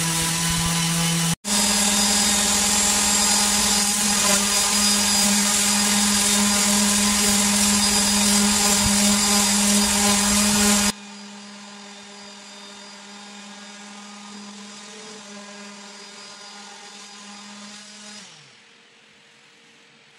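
Wood lathe running with a steady motor hum while a cloth pad rubs the spinning wooden bowl, adding a loud hiss. About eleven seconds in the sound drops sharply to the lathe's quieter hum, which falls in pitch and fades near the end as the lathe winds down.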